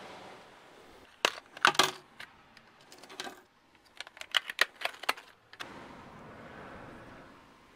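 Sharp clicks and light metallic rattles of fishing tackle and gear being handled, in two runs: about a second in, and again from about four to five seconds. Wind on the microphone in between and near the end.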